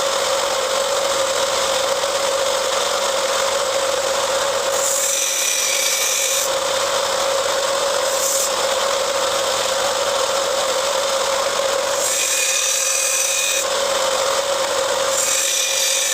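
A 1-inch belt sander running with a steady whine while a knife blade is ground against the belt to reprofile its edge bevel to a steeper angle. The grinding noise brightens and shifts several times as the blade is moved across the belt.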